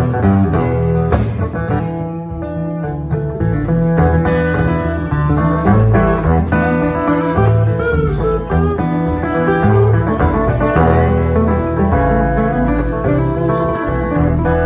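Live country-style band playing an instrumental break with plucked guitar and a steady bass line, no vocals.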